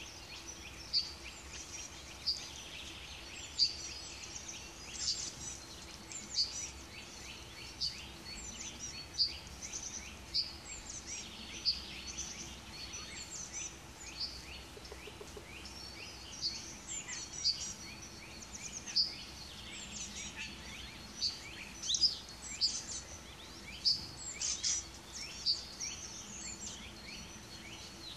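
Small songbirds calling and singing: a continuous series of short, high, sharp chirps, one every second or so, some louder and nearer than others.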